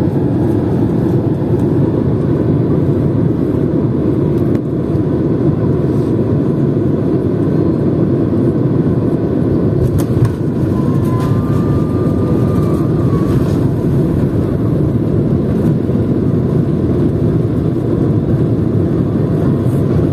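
Cabin noise of a Boeing 767-200 heard from a window seat over the wing during landing: a steady, dense rumble of engines and airflow. About ten seconds in there is a brief knock as the wheels reach the runway, followed by a faint high tone for a few seconds. The rumble continues through the rollout with the ground spoilers up.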